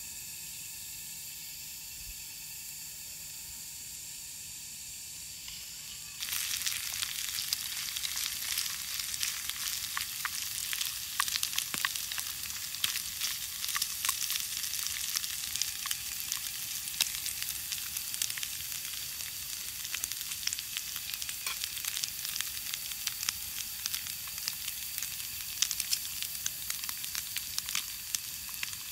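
Steady high insect drone for about the first six seconds. Then meat pieces start sizzling loudly in a frying pan over a campfire, a dense hiss with many small crackling pops and spits.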